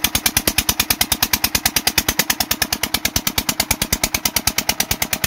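Kirloskar 6 HP single-cylinder diesel engine running a water pump, a steady rapid chugging of about ten beats a second while the pump delivers water.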